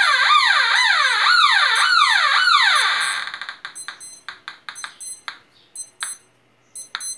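Homemade pulse-induction metal detector's speaker warbling, its tone swooping down and up about twice a second as it responds to a 925 silver ring at the coil. The tone fades out about three seconds in and gives way to a run of short clicks.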